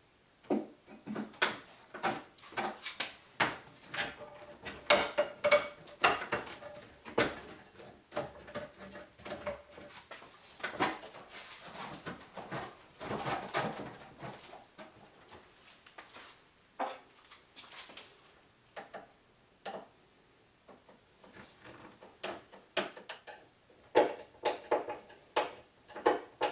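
Irregular knocks, clicks and rubbing of an aluminium-and-silicone intake air tube being handled and pushed into place in an engine bay, with a brief squeak partway through. Near the end, a quick run of clicks as a hose clamp is worked with a screwdriver.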